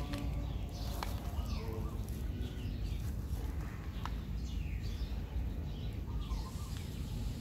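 Outdoor ambience: birds chirping now and then over a steady low rumble, with two faint clicks about one and four seconds in.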